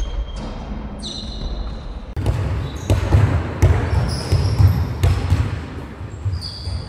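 Indoor basketball game in a large, echoing sports hall: sneakers squeak on the court floor several times over the thuds of the ball bouncing and players running. The squeaks and thuds come most densely from about two seconds in.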